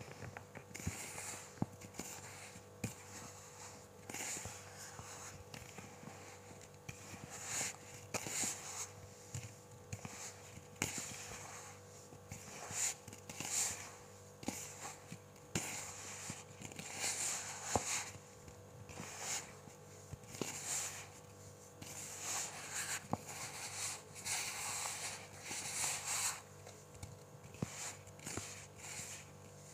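Fingers squeezing and crumbling damp, cola-soaked baking soda clumps. Soft crunching and crackling comes in repeated bursts every second or two, with small sharp crackles in between and a faint steady hum underneath.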